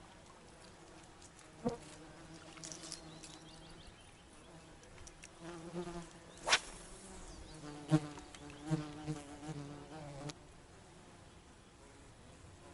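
A flying insect buzzing close to the microphone, coming and going in strength, then stopping about ten seconds in. There are a couple of sharp clicks, the loudest about six and a half seconds in.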